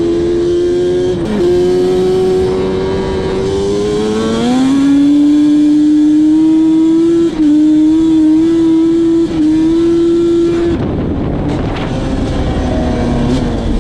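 Yamaha Banshee 350's two-stroke twin engine being run hard to clear out carbon, with a steady high note that climbs a little, then drops to a lower pitch about four and a half seconds in, with two brief dips after that. About three seconds before the end the throttle closes and the engine falls back to a lower, quieter note.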